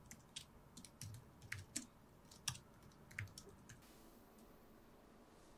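Faint, irregular keystrokes on a low-profile computer keyboard, stopping about three and a half seconds in, after which it falls to near silence.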